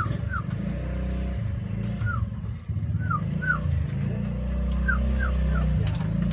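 A steady low motor-like hum runs throughout. Over it, short falling chirps come in twos and threes, from birds in the pigeon loft.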